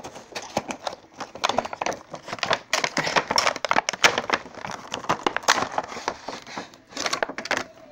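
A cardboard Funko Pop vinyl figure box being opened by hand, its card flaps and clear plastic insert crinkling and crackling with many small irregular clicks and rustles.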